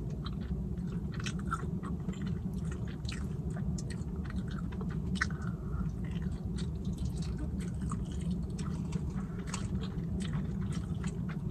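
Close-miked chewing of a soft baked chicken drumstick, with many small mouth clicks throughout over a steady low background hum.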